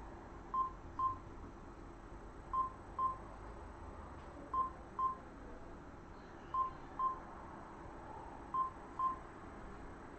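Electronic alert beeps from earthquake-monitoring software, signalling an earthquake report: short double beeps at one pitch, a pair every two seconds, over a faint steady hum.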